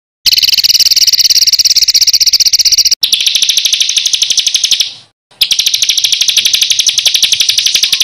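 A songbird's harsh, rolling trill of very rapid repeated notes, sung in three long bouts. The first bout lasts about three seconds, the second fades away, and after a brief silence the third sets in.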